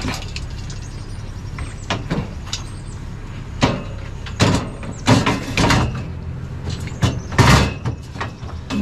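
A vehicle engine idles with a steady low hum while objects knock and clunk about half a dozen times, the loudest clunk near the end, as scrap is handled and shifted in a pickup bed.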